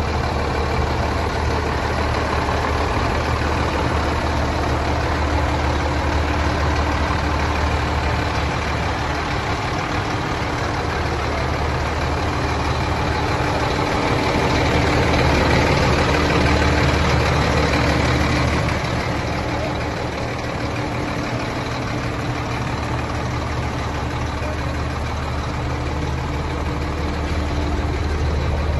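Renault Kerax 400 8x4 tipper truck's diesel engine idling steadily, a little louder for a few seconds about halfway through.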